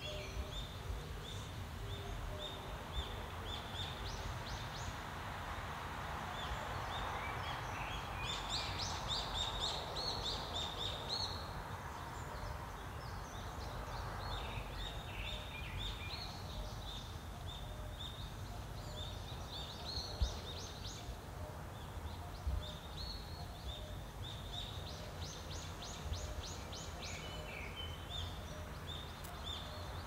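Several wild birds chirping and trilling in short repeated phrases, over a steady low rumble of wind. A soft rushing swell rises and fades about a third of the way in.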